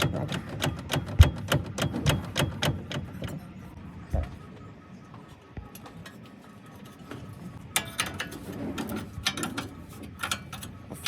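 Rapid sharp mechanical clicks and knocks, in two spells with a quieter gap between them, and a few heavier thuds in the first spell.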